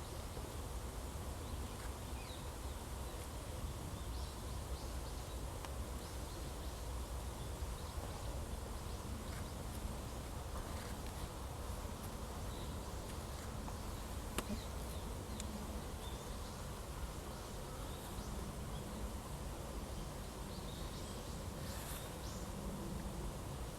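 Steady background noise with a low rumble and a faint steady hum. No distinct event stands out, apart from one faint click about fourteen seconds in.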